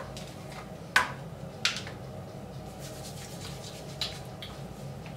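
Three short clicks and taps of hair product containers being handled and set down on a bathroom counter, the first about a second in and the last near four seconds, over a faint steady low hum.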